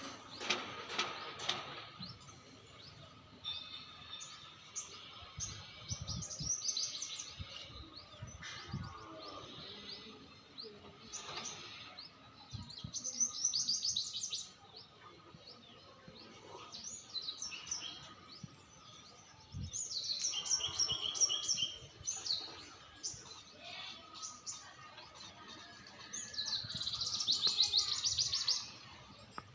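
A small bird chirping and twittering in bursts of rapid high chirps and trills, a few seconds apart, with longer, louder runs about halfway through and near the end.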